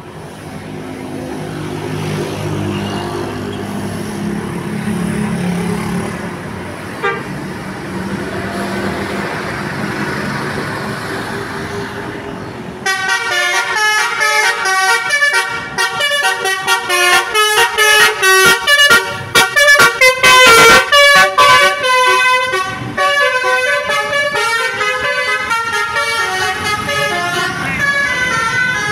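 A bus's engine running with a low rumble, then about halfway through a loud telolet 'basuri' musical bus horn cuts in and plays a fast tune of short stepping notes.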